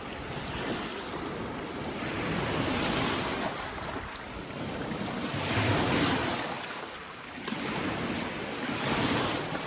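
Lake Superior waves washing onto a rocky beach, swelling and ebbing about every three seconds, with wind buffeting the microphone.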